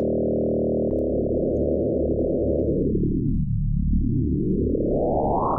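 Arturia Pigments software synthesizer holding one sustained note from its analog engine, with the oscillator 1 sine wave frequency-modulated by oscillator 3. After about a second the FM amount is swept, so the tone grows duller until about halfway through, then brighter and buzzier toward the end.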